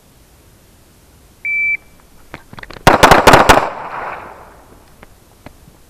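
Shot-timer start beep, then about a second and a half later a rapid string of 9mm pistol shots in a drill of three rounds in two seconds, the reports echoing briefly.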